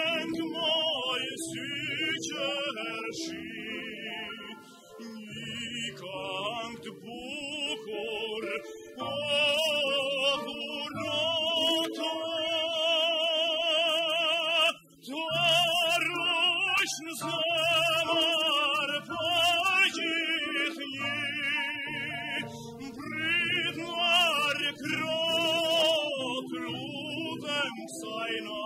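Classical-style singing: a voice holding long notes with wide vibrato over a sustained accompaniment, phrases breaking off and starting again every few seconds.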